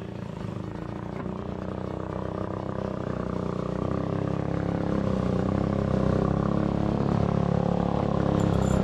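A small engine running steadily, growing louder throughout.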